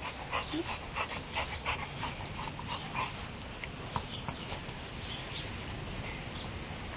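A dog making a run of short breathy puffs, a few a second, for about five seconds before settling.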